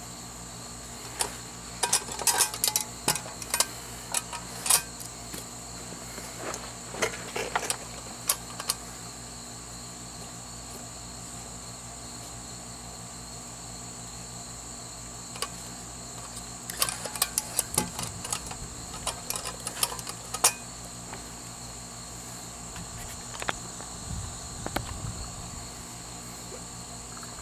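Crickets trilling steadily, with two spells of light clicks, clinks and knocks from a metal mess kit and canteen being handled on a wooden table, the first a couple of seconds in and the second about two-thirds of the way through.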